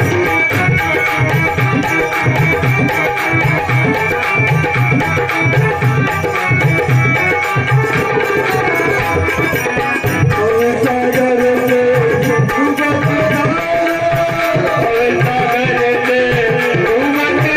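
Instrumental passage of a Hindi devotional bhajan: a hand drum of the tabla kind keeps a steady beat under held melodic tones. A wavering melody line comes in about ten seconds in.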